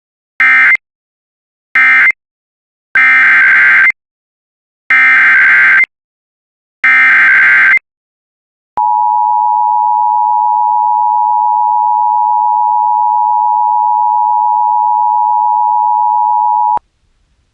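NOAA Weather Radio SAME digital alert signal. Two short buzzing data bursts end the previous message, then three longer bursts carry the header of a new warning. They are followed by the steady single-pitch Weather Radio warning alarm tone, held for about eight seconds and cutting off abruptly.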